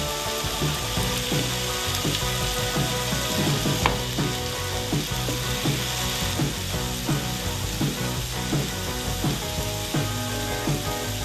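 Chicken pieces, grated carrot and onion sizzling steadily as they fry in a nonstick pan, with a single sharp click about four seconds in.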